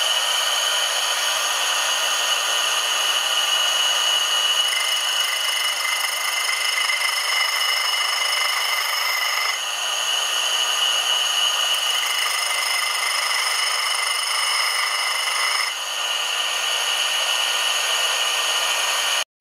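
Electric motor spinning a diamond cup wheel while a homemade scraper is sharpened against its face: a steady whine and grinding hiss. Twice, for about four to five seconds each, a higher grinding tone joins in.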